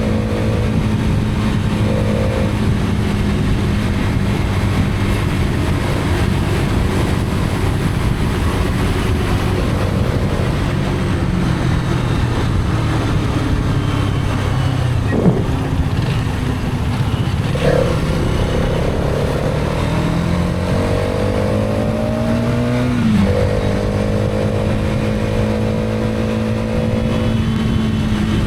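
Hero Karizma XMR's single-cylinder engine running on the move, under a steady rush of wind and road noise. Its note climbs and then drops sharply about 23 seconds in, and a single sharp knock comes about 15 seconds in.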